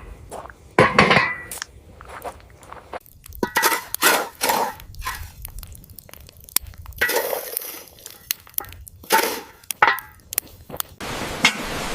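Clattering of cookware and utensils: a string of irregular clinks, knocks and scrapes. A steady hiss starts near the end.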